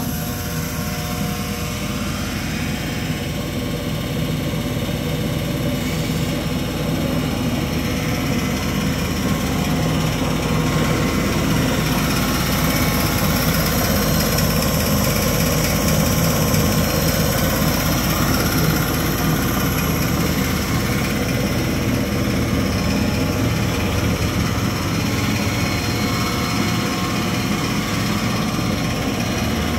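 Biro 3334 fixed-head band saw running steadily with nothing being cut: its 3-horsepower three-phase motor driving the wheels and blade at speed.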